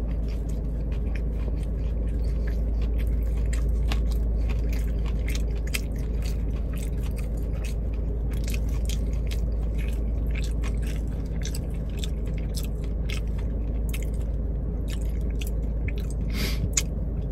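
Close-up chewing of a lemon pepper boneless chicken wing: a continuous run of small, wet mouth clicks and crunches over a steady low hum.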